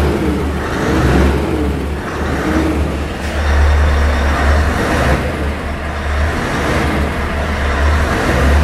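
Scania S 580's 16-litre V8 diesel running just after start-up, heard from inside the cab. The revs rise and fall a few times as the throttle is blipped.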